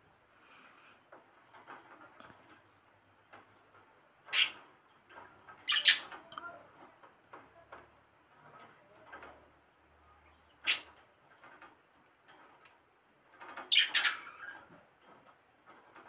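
A gloved hand kneading soft butter-and-cornstarch dough in a glazed clay bowl: faint squishing and rubbing, broken by about four sharp, louder sounds where the hand meets the bowl.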